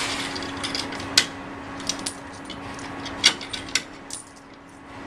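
Quarters clinking as they are handled and fed into an ice cream vending machine's coin slot: several sharp metallic clinks at uneven intervals, over a steady low hum.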